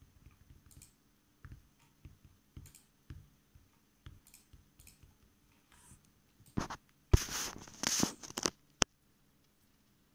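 Handling noise: faint scattered clicks, then about two-thirds through a loud burst of rustling and clicking that ends in one sharp click.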